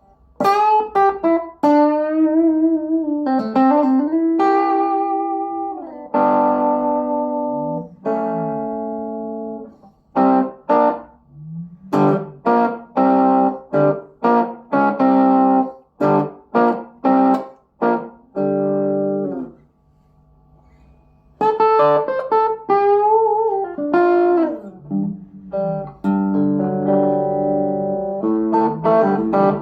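Electric guitar, a FABIO ST100 WH Stratocaster-style guitar with three single-coil pickups, played through a small FABIO G-10 combo amp: a melodic lead line with string bends, then a run of short clipped notes, a brief pause, and more bent notes near the end.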